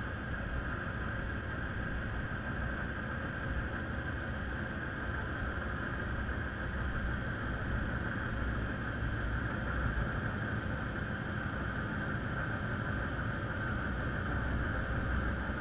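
Steady muffled rumble and hiss heard underwater through a drop camera's waterproof housing, with a constant hazy band in the upper middle.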